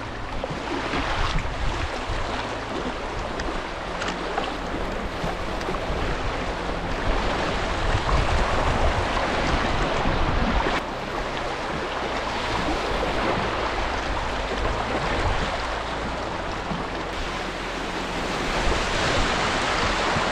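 Rushing water of a shallow river rapid churning around a kayak, a steady loud rush, with a low rumble of wind on the microphone.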